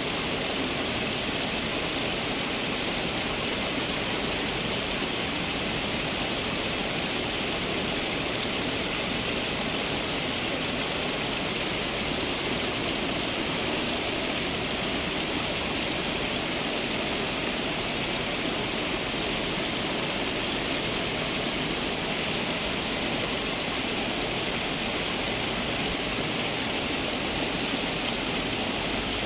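Fountain water splashing and falling steadily, an even rushing hiss that does not change.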